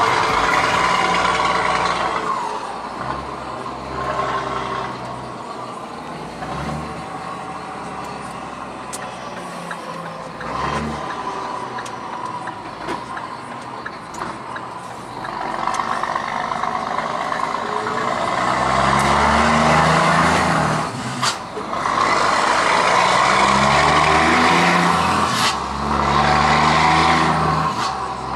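Scania R420 truck's inline six-cylinder diesel heard from inside the cab. It runs loud at first, then eases off to a quieter, lighter load for a stretch. About halfway through it pulls hard again, revs rising in steps, with two brief dips as the Opticruise automated gearbox shifts up, one about three-quarters in and one near the end.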